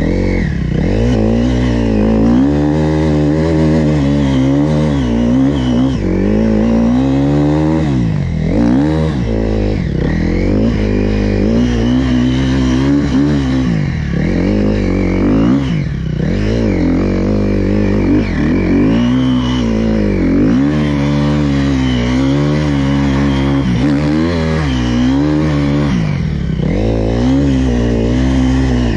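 Dirt bike engine being ridden hard, revving up and falling back over and over. Its pitch climbs and drops every one to two seconds as the throttle is opened and shut.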